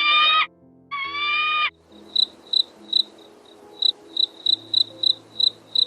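A cricket chirping: short, high, evenly pitched chirps about three times a second, starting a little under two seconds in. Before it come two drawn-out, slightly rising pitched calls.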